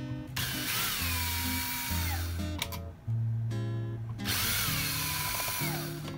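Cordless drill/driver running in two bursts of about two seconds each, backing out a wall receptacle's mounting screws. Its motor whine drops in pitch as each burst goes on. Acoustic guitar music plays underneath.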